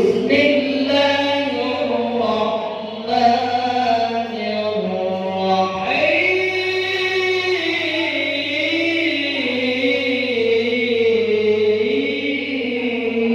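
A young male qari reciting the Quran solo in a melodic tajwid style, drawing out long ornamented phrases that glide up and down in pitch. The voice breaks off briefly about six seconds in for a breath, then starts a new held phrase.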